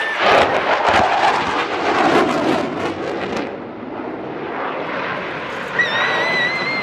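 Fighter jet flying past overhead: loud jet roar with crackle, easing off after about three and a half seconds. A high steady whistling tone comes in near the end.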